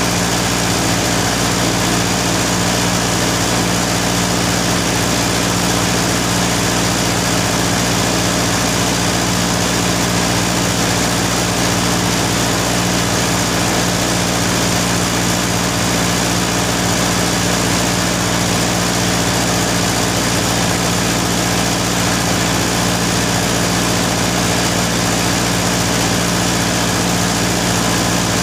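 A machine running steadily with a low, unchanging hum over a constant hiss.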